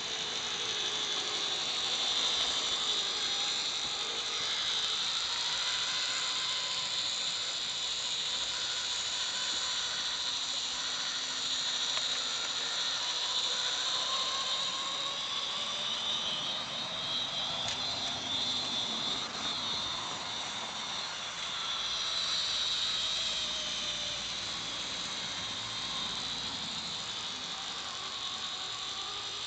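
OO gauge model Class 56 diesel locomotive with a train of tank wagons running along the track, its motor, gears and wheels making a steady mechanical whir that swells and fades a little.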